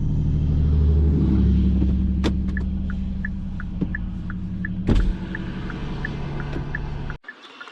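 Car engine running, its note rising about a second in, with a turn signal relay clicking in alternating tick-tock pairs, about three clicks a second. Two sharp knocks come in the middle, and the engine sound cuts off abruptly near the end.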